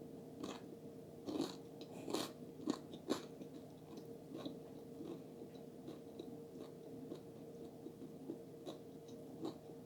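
Close-miked chewing of food, with several sharp crunchy bites between about one and three seconds in, then softer, quieter chewing. A faint steady hum lies underneath.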